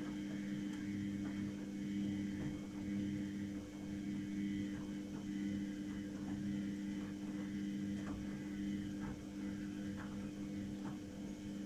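Samsung Eco Bubble washing machine running in its spin, a steady hum at an even pitch with faint scattered ticks.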